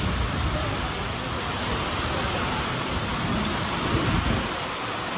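Heavy rain pouring down steadily during a thunderstorm, with a low rumble underneath.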